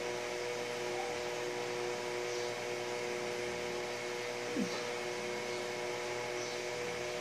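Steady mechanical hum with a constant hiss, like a room fan or air conditioner. A short falling tone cuts in briefly about four and a half seconds in.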